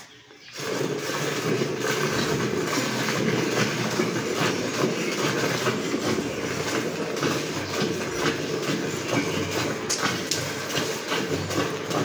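Cow being milked by hand into a metal pail: quick alternating streams of milk squirting into the frothy milk already in the pail, a fast, steady patter that starts about half a second in.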